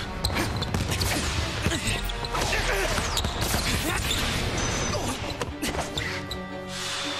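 Anime background music under a stream of action sound effects for a basketball play: sharp hits and whooshes. Near the end the hits thin out and the music settles into held notes.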